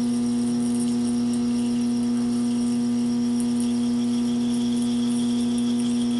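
Taig lathe running at 400 RPM with a constant, even hum while a 7/16-inch twist drill is fed into aluminium stock in the chuck.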